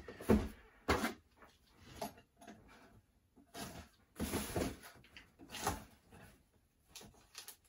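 Cardboard shipping package being handled and opened: irregular rustles, scrapes and light knocks.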